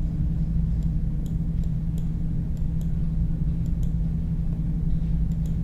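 Faint, irregular computer-mouse clicks over a steady low hum.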